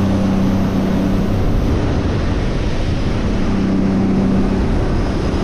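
Bay boat running fast over open sea: a steady rush of wind, spray and wake water. An engine hum comes through near the start and again about halfway through.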